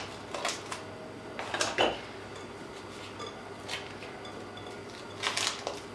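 A few scattered light knocks and clinks as a glass mixing bowl and a roll of cling film are handled on a countertop. The loudest knock comes a little under two seconds in, with a small cluster about five seconds in.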